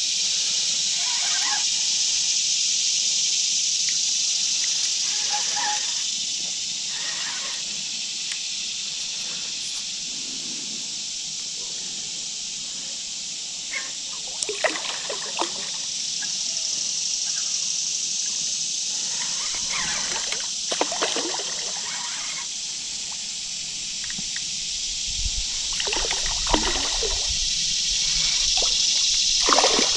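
Water splashing and sloshing a few times over a steady high hiss, from a hooked striped bass fighting near the surface of the creek.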